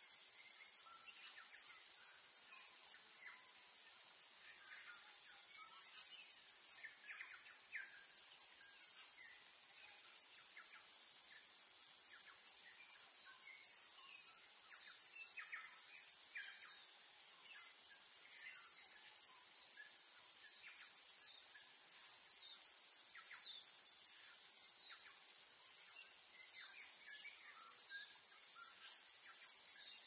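A steady, high-pitched chorus of insects, with many short bird chirps coming and going.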